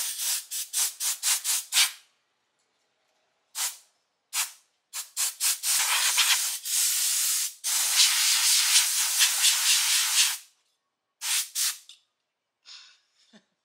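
Compressed-air blow gun hissing through a foam cone air filter, blowing loose debris off it. It goes in quick short bursts at first, then several single bursts, then a steady blast lasting about three seconds, and two short bursts near the end.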